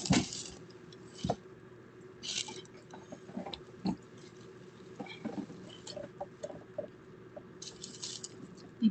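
Soft rustling and scuffling of bedding as a person handles a cat on a bed, with a few short hissy bursts and light taps, heard through a home security camera's microphone.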